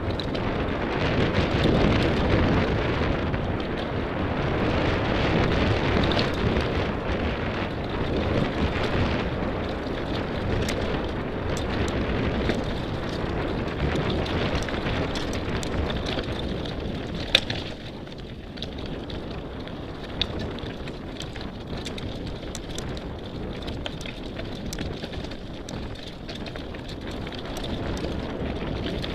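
Merida mountain bike riding fast down a stony forest trail: tyres rumbling over loose rock and roots, with wind rushing on the microphone and many small sharp clicks and rattles from the bike over the rough ground. The rushing is loudest at first and eases after a sharp knock about seventeen seconds in.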